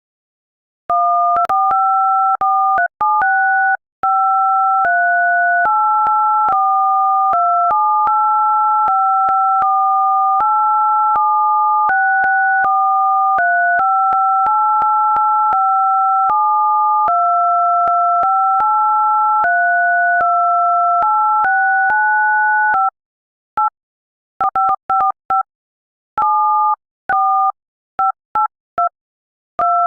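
Touch-tone (DTMF) keypad tones from a smartphone dialer app, keys pressed one after another to play a tune: each note is a pair of tones held for a fraction of a second to about a second, with faint taps as keys change. After about 23 seconds the notes turn into short, quick beeps with gaps between them.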